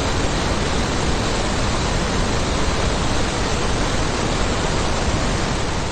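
Steady, loud rushing hiss with no tone or rhythm in it, fading away at the very end.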